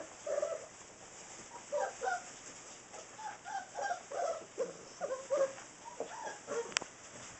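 Litter of six-week-old Saint Bernard puppies whining and yipping in many short, overlapping calls, with one sharp click near the end.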